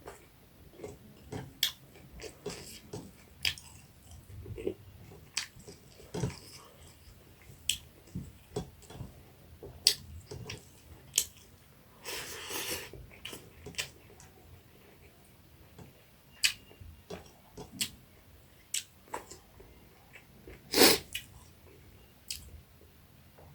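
Close-up mukbang eating sounds of someone chewing fried small rohu fish with rice: irregular wet smacks and small clicks. There is a hissing stretch of about a second around halfway, and a single loud sharp knock near the end.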